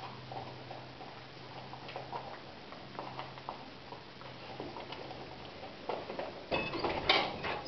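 Newborn spaniel puppies making faint, scattered squeaks and small scuffling sounds over a low steady hum; the sounds get louder in the last second.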